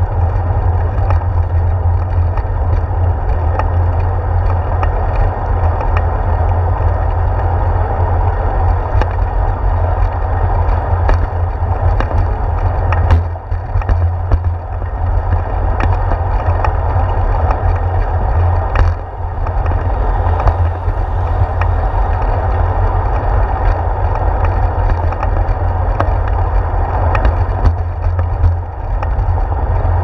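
Bicycle riding noise picked up by a handlebar-mounted camera: a steady low rumble of wind and tyres rolling on a concrete path, with frequent small knocks and clicks from bumps in the surface.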